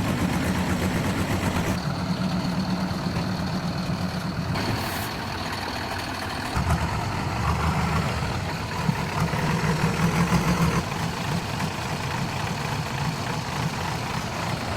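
Heavy diesel engine running steadily, louder and working harder from about seven seconds in until about eleven seconds, then settling back.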